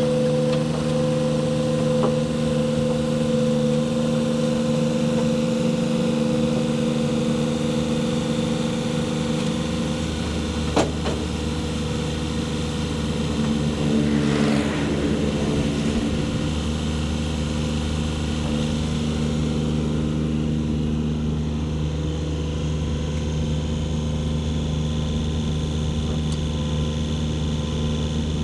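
Compact excavator's diesel engine running steadily, with one sharp clank about eleven seconds in and a brief rise in noise a few seconds later.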